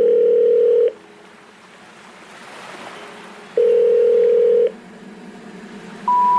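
Telephone line tones in the soundtrack. A steady mid-pitched tone sounds for about a second at the start and again a few seconds later, with a hiss between them. Near the end comes the first, lowest note of the rising three-note special information tone that a phone network plays before a 'number not reachable' message.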